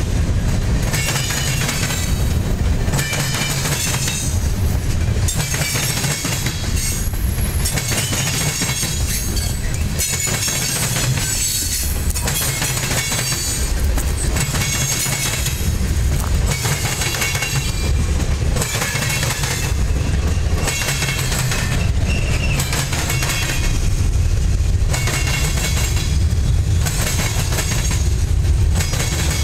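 Freight cars (covered hoppers and gondolas) rolling past and clattering over a railroad diamond crossing: a steady rumble with repeated clicks as the wheels strike the crossing.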